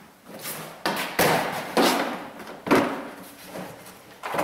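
Hard plastic meter carrying case being set down on the front of the truck and opened, giving several knocks and thumps of plastic, the loudest a little before three seconds in.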